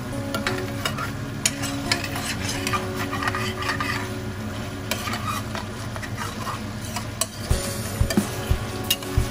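Metal spoon stirring pork adobo in a steel pan, scraping and clicking against the metal while the thickened sauce sizzles and bubbles. Heavier knocks of the spoon against the pan come near the end.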